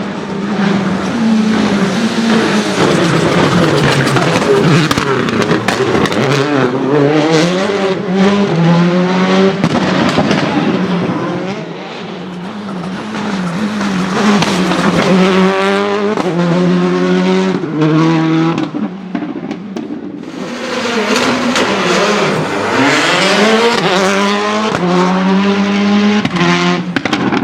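Citroën Xsara WRC's turbocharged four-cylinder rally engine revving hard through quick upshifts, its pitch climbing in steps and dropping back. Crackles and bangs from the anti-lag system run through it. It eases briefly about twelve seconds in and again near twenty seconds before pulling hard again.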